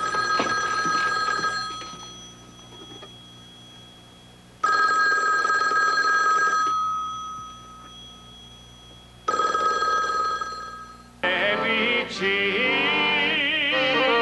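Desk telephone ringing: three rings of about two seconds each, a couple of seconds apart. Accordion music starts near the end.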